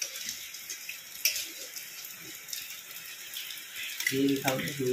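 Steady hiss of rain, with a few light clicks. A man's voice comes in near the end.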